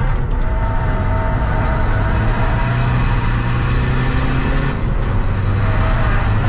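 Seat Ibiza FR's 2.0 TDI common-rail diesel engine running hard under load, heard from inside the cabin over tyre and road noise. The engine note drops about three-quarters of the way through.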